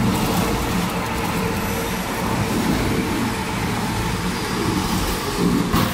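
Log debarking and rounding machine running, its cutter stripping bark from a rotating log: a steady rough mechanical grinding with a faint steady hum, and a brief knock near the end.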